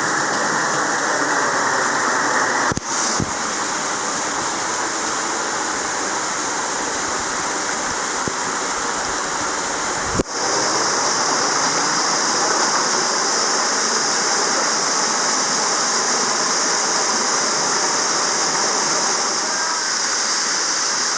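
Waterfall, a steady loud rush of falling water, with two short breaks where the sound shifts about three and ten seconds in.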